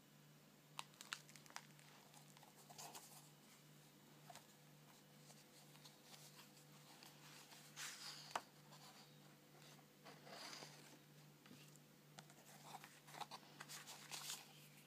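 Faint rustling and soft clicks of paper and card pages being handled and turned in a handmade journal, with a low steady hum beneath.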